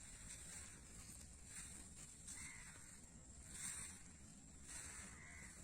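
Near silence: faint outdoor ambience with soft, short bursts of high hiss about every second and a faint steady high whine.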